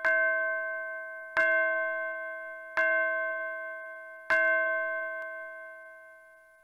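A bell chime sounding the same note four times, about a second and a half apart, each stroke ringing on and fading away.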